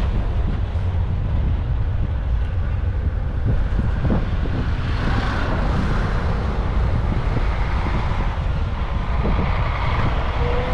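Steady rumble of an Airbus A319-111's CFM56 jet engines and the rush of air around the aircraft, with a faint rising whine near the end.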